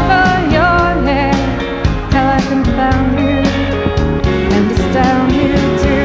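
Background music: a song with a singing voice over instruments.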